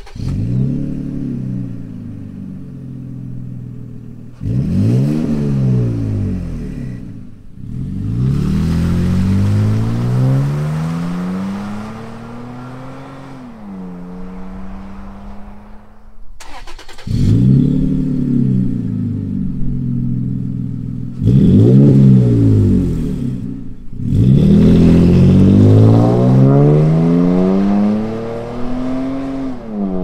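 Toyota Tacoma V6 exhaust through an aftermarket cat-back dual exhaust system, revved repeatedly: each rev climbs and falls back, and the engine settles to a steady idle between runs. The sound breaks off abruptly about 16 seconds in, then the revving resumes.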